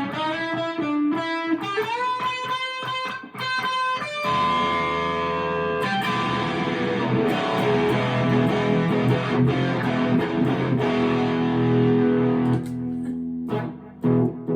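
Electric guitar played through an overdrive pedal into a Harley Benton amp: a run of single notes with upward bends, then held, overdriven chords from about four seconds in.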